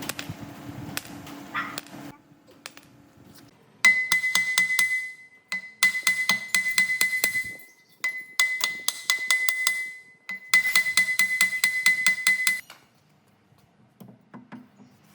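Metal being struck quickly and repeatedly with a hammer, in four runs of about six ringing blows a second, each run lasting about two seconds.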